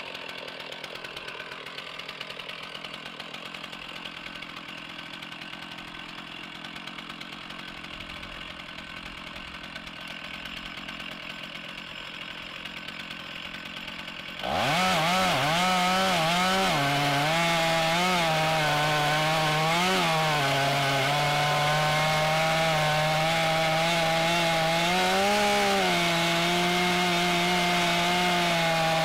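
Stihl MS 461 two-stroke chainsaw in a Granberg Alaskan chainsaw mill, idling for about the first half, then opened to full throttle and cutting a lengthwise slab from a log. Under the cut the engine note holds steady but dips and rises as the chain meets the wood, loaded by the long rip cut.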